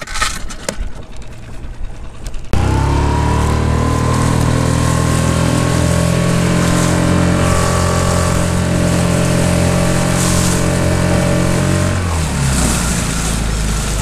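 Small tiller outboard motor on a micro skiff running under way. A steady engine drone cuts in suddenly about two and a half seconds in, climbing a little in pitch at first, then drops lower near the end as the throttle eases. Wind and water rush sit under it.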